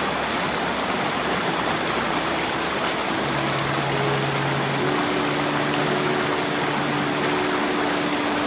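Steady rush of a rocky stream, water splashing and pouring over stones. About three seconds in, soft held musical notes begin faintly underneath.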